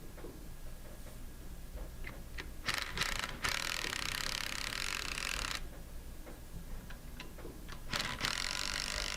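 Ratchet wrench clicking as the large clamp bolts on a Versamatic metal pump are tightened: a few separate clicks, then two runs of rapid clicking, one about two seconds long and a shorter one near the end.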